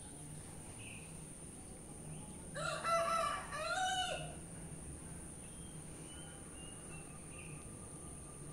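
A rooster crowing once, about two and a half seconds in: a pitched call under two seconds long in two parts, the second rising and then falling away. A few faint bird chirps follow.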